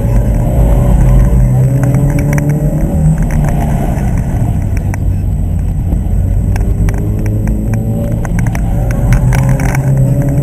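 Subaru BRZ's 2.0-litre flat-four engine heard from inside the cabin while the car is driven hard. The revs rise and fall again and again as the driver accelerates and lifts between turns.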